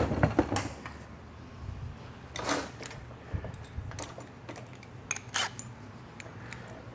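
Scattered light clicks and knocks of tools and metal being handled on a steel workbench, over a faint steady low hum.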